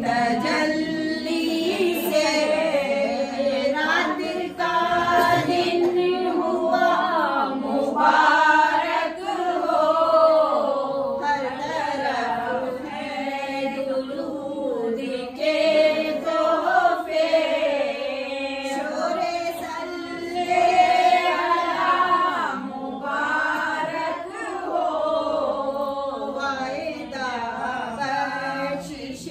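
A group of women chanting a devotional naat together, unaccompanied, in one flowing melodic line with no instruments.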